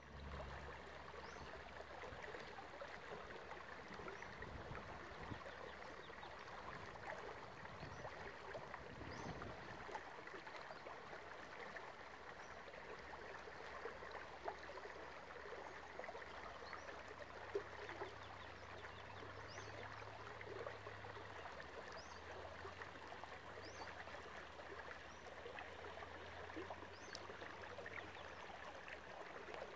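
Small, shallow meadow creek trickling and gurgling faintly, a steady running-water sound.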